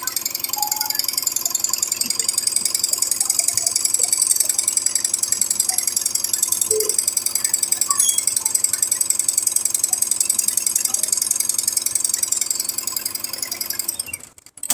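Single-head, eight-needle computerized embroidery machine stitching: a fast, even mechanical clatter of needle strokes that stops just before the end.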